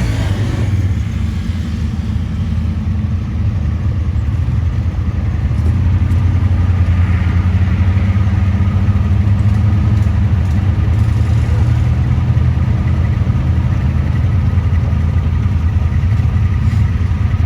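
Off-road vehicle engine running steadily at a low, even pitch, growing a little louder about six seconds in.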